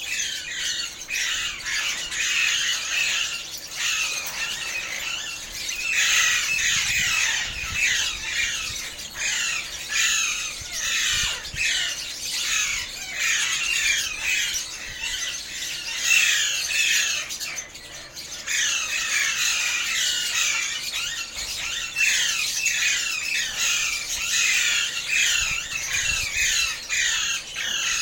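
Alexandrine parakeets squawking and chattering nonstop, many short harsh downward-sliding calls overlapping, with a brief lull about two-thirds of the way through.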